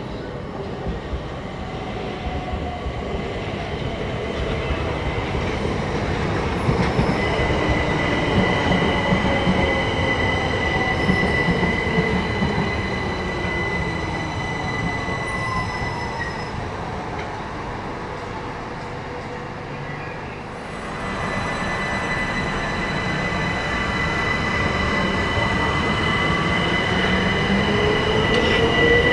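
Southeastern Electrostar electric multiple unit coming out of a tunnel and running into the station, louder as it draws alongside. Its electric whine falls in pitch as it slows, over a steady high-pitched squeal from the wheels and brakes, and a rising whine comes in near the end.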